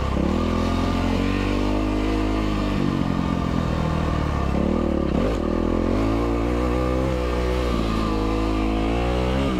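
Yamaha WR450F's single-cylinder four-stroke engine running under way along a dirt track, its note climbing under throttle, dropping and climbing again about halfway through and near the end.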